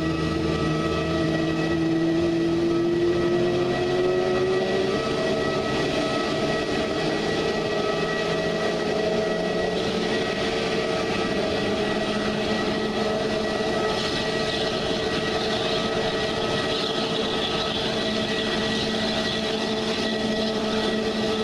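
Airbus A320neo's CFM LEAP-1A turbofans whining at the stand during engine start-up, one tone rising slowly in pitch over the first few seconds as an engine spools up, then settling into a steady whine. A rushing hiss builds up about two-thirds of the way through.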